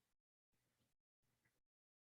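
Near silence: very faint hiss with a low hum that keeps dropping out to nothing and coming back in short stretches.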